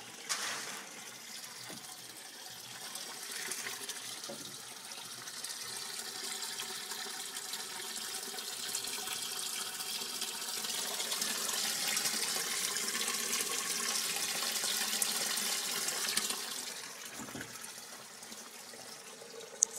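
Water pouring from a pipe and splashing into a tank of water in a small aquaponics system. The splashing is steady, grows louder for several seconds past the middle, then eases off near the end; there is a sharp click at the start and another just before the end.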